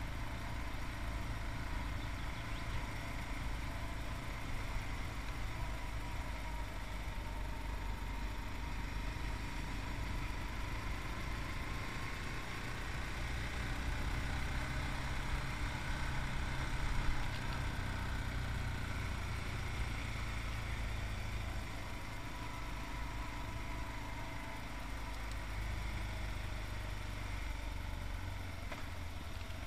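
Yamaha MT-03's 660cc single-cylinder engine running on the move, its note slowly rising and falling. A brief loud knock about halfway through.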